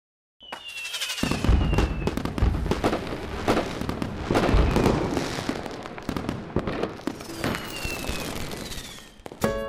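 Fireworks: repeated bangs with deep booms and crackling, and two falling whistles, one just after the start and one near the end.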